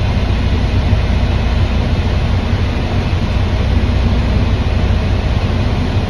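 Steady low rumble with an even hiss heard inside a semi-truck's cab: the idling truck engine and strong wind against the cab.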